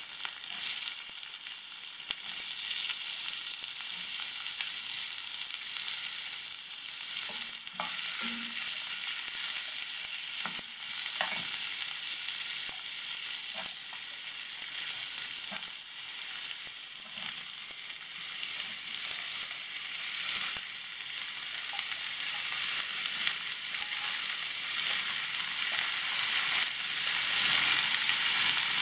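Chopped snake gourd frying in hot oil in a stainless steel kadai: a steady sizzle, with scattered clicks and scrapes of a metal slotted ladle stirring the pieces. The sizzle grows somewhat louder near the end.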